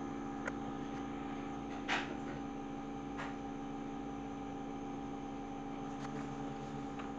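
Steady electrical hum of a running desktop PC, with a few short clicks; the loudest click comes about two seconds in.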